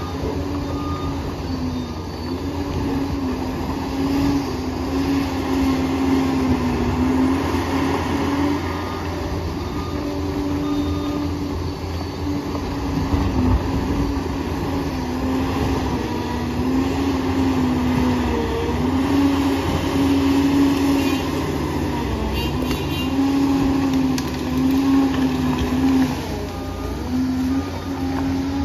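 Liebherr PR 746 crawler dozer working, its diesel engine running steadily under a loud whine that holds a pitch and dips briefly every couple of seconds.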